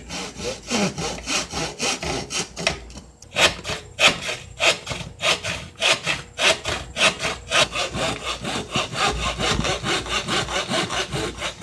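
Handsaw cutting through a thin piece of wood, trimming off a quarter-inch lip in steady back-and-forth strokes, about three a second, with a short pause about three seconds in.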